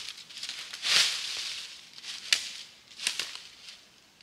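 Bursts of rustling and crackling with a few sharp snaps, the loudest about a second in.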